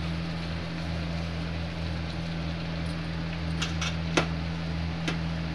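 Steady hum and fan noise from an induction cooktop running under a steel kadhai of curry, with a few sharp clicks in the second half.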